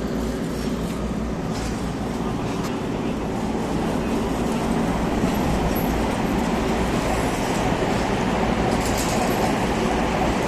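Steady rumble of passing traffic, road and rail, with no single clear event; it grows a little louder about four seconds in.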